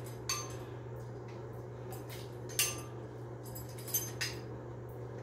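Pliers clicking against the metal threaded rod and lock nut of a bathtub trip-lever drain linkage as the seized nut is worked loose: a few sharp metallic clinks with a short ring, over a steady low hum.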